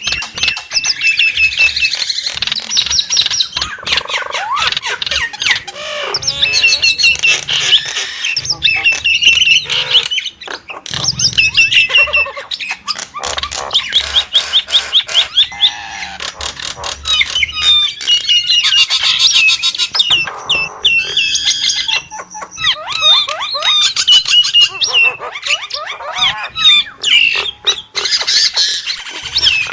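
A Nias hill myna calling in a long, varied run of rapid whistles, pitch-gliding notes, chatter, clicks and harsh squawks, broken by a few short pauses.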